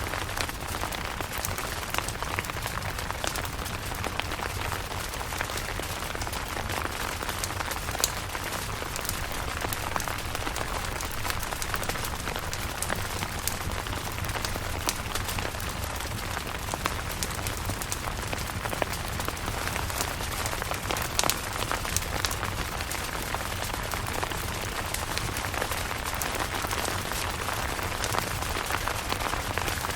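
Steady rain falling on a camping tent, with frequent sharp hits of single drops over an even hiss.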